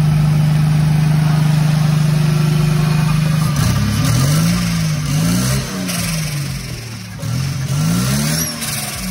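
Turbocharged Toyota 2JZ-GE inline-six in a Nissan Skyline R32, running on a Microsquirt standalone ECU. It holds a steady raised speed for about three and a half seconds, then is revved up and down several times with throttle blips.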